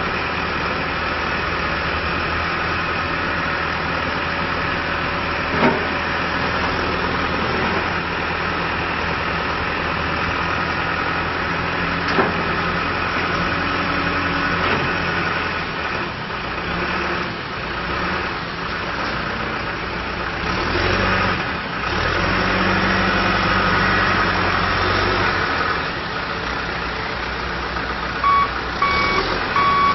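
John Deere 310SJ backhoe loader's diesel engine running steadily, with a couple of sharp clicks. About halfway through, the engine speed starts to rise and fall as the machine is worked, and near the end the reversing alarm begins beeping.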